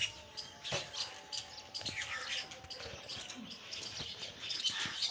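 Small birds chirping over and over, with a few sharp knocks and scrapes of a steel spade working cement mortar on a concrete floor.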